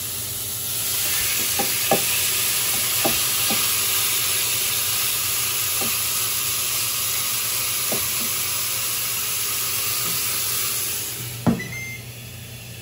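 Food sizzling loudly on the Ninja Foodi AG301 grill's hot grill plate, a steady hiss with scattered sharp pops and crackles. Near the end the sizzle fades, a single sharp click sounds, and a low steady hum remains.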